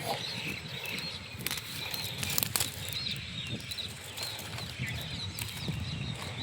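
Small birds chirping with short, high, repeated calls, with a few sharp clicks about a second and a half and two and a half seconds in.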